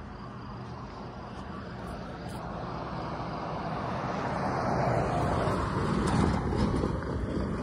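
A pickup truck driving past over a railroad grade crossing: tyre and engine noise growing louder, peaking about six seconds in, then starting to fade.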